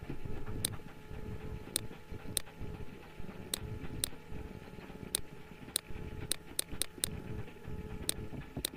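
Computer mouse clicking: about a dozen sharp clicks at uneven intervals, some in quick pairs, over a low background rumble and a faint steady hum.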